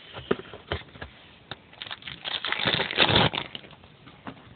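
Baseball trading cards being handled and flipped through: scattered light clicks and crinkling, with a longer rustle about two and a half seconds in.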